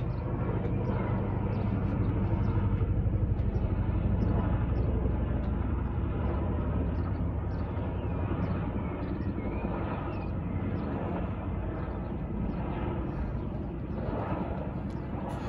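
RAF Chinook tandem-rotor helicopter flying high overhead: a steady low, rapidly pulsing rotor beat, loudest a few seconds in and slowly fading after.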